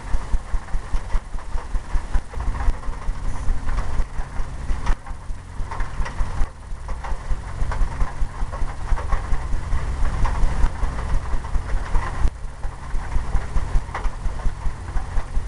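Paint brush scrubbing and tapping dark oil paint onto a stretched canvas, making dull rhythmic thumps about three times a second.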